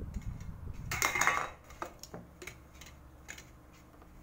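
Hands reloading a Lego vending machine: a rumble of handling, a short clatter about a second in, then scattered light clicks of hard plastic and small items.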